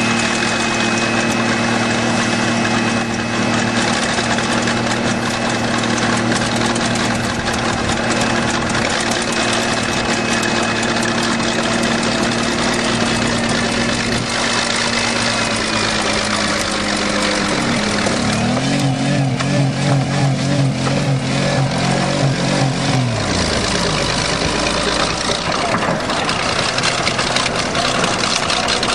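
3.8-litre V6 car engine running fast and steady, its throttle held open by a wedged piece of wood. About two-thirds of the way through, the engine note shifts and a wavering lower note comes in, then gives way to rougher running.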